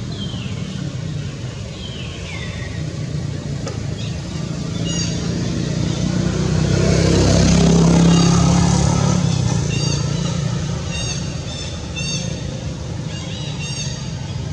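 A passing motor vehicle swells to its loudest about eight seconds in and then fades, over a steady low hum. Two short falling calls come in the first few seconds, and short high chirps repeat through the second half.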